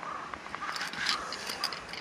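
A netted rock trout splashing and shifting in a rubber-mesh landing net at the water's edge: irregular splashes and small clicks, loudest about a second in.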